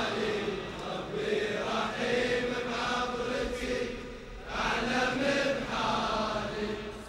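Men's voices chanting a Shia Muharram mourning lament (latmiyya) in long, drawn-out phrases, with a short break about four seconds in before the chant resumes.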